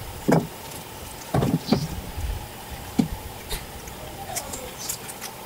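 Knife and squid knocking and scraping on a cutting board as fresh squid is cleaned and cut: about four short sharp knocks in the first three seconds, then lighter clicks, over a steady low hum.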